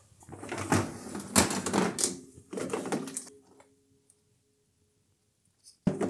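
Clatter and knocks of a dishwasher being opened and its wire rack pulled out, mixed with bumps from handling the phone. The rattling fades after about three seconds, and a sharp click sets off more clatter near the end.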